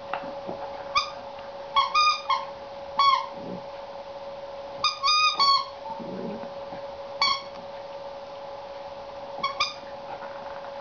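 Squeaky dog toy squeaking as a Border Collie puppy chews on it: about ten short, high squeaks, some single and some in quick runs of two to four.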